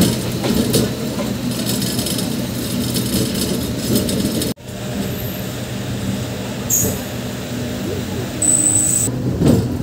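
Running noise of a MEMU electric train, heard from its open door: a steady motor hum with wheel-and-rail clatter. The sound cuts out for an instant about halfway through, and short high-pitched squeals come near the end.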